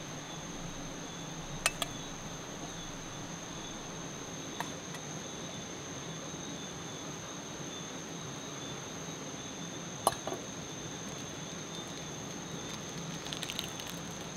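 Steady high-pitched trilling of night insects. A few sharp clinks cut through it: two close together a couple of seconds in, the loudest about ten seconds in, and a short patter of small clicks near the end.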